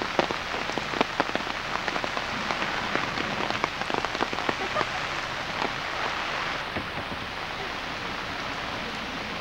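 Steady rain falling on flooded street water, with many sharp drop ticks that are thickest in the first half and thin out after that.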